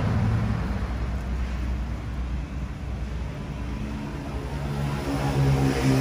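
Road traffic: a steady low rumble, with one vehicle's engine growing louder and passing about five seconds in.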